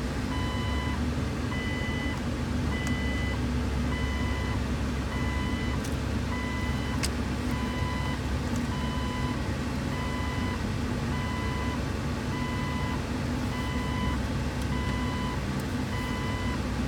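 A 2005 Jeep Wrangler's heater blower fan running steadily, with the dashboard warning chime beeping evenly a bit more than once a second.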